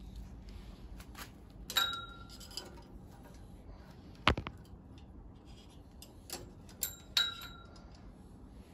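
A handful of sharp clicks and light metallic clinks, some with a brief ring, and one louder knock about four seconds in.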